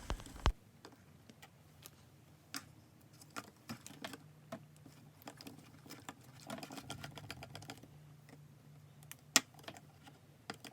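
Faint, irregular clicks and taps of a stirring stick or spoon against a measuring cup as warm water and sodium tetraborate activator are stirred together, with one sharper tap about nine seconds in.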